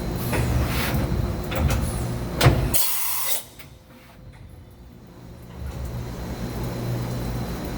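Automatic tool changer of a 2013 Mazak HCN 4000-III horizontal machining center cycling over a steady machine hum. Several clicks and clunks lead to a loud clunk about two and a half seconds in, followed by a short hiss. The hum then drops away for about two seconds before coming back.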